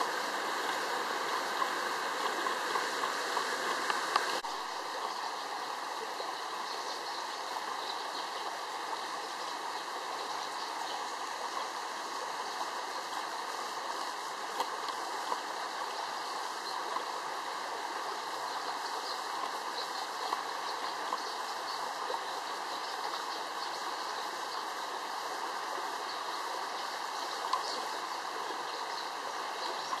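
Small mountain stream running over rocks: a steady rush of water, dropping slightly in level about four seconds in.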